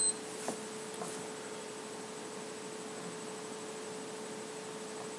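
Room tone: a steady electrical hum at one pitch over a faint hiss, with a couple of tiny clicks in the first second.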